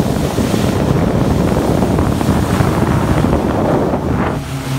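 Loud, steady rush of wind buffeting the microphone and water spraying past a motorboat moving at speed. Near the end the rush eases a little and a steady low engine drone comes through.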